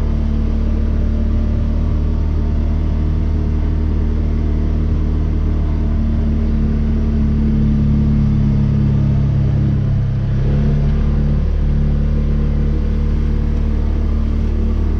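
Vehicle engine running steadily under load while towing a makeshift field drag. Its pitch rises slightly a few seconds before the end, dips briefly, then settles back.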